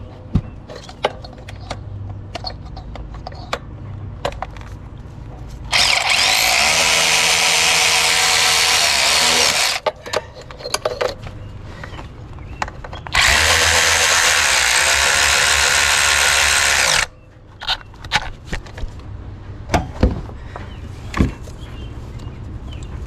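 DeWalt cordless 3/8-inch long-neck ratchet running twice, about four seconds each time, driving down an 8 mm fuel rail bolt. Short clicks and handling knocks come between and after the runs.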